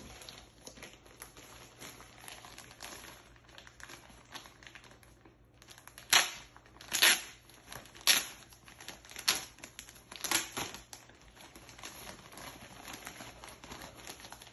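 Packaging being handled during an unboxing: light rustling, then a run of about six sharp crinkles roughly a second apart, then quieter rustling.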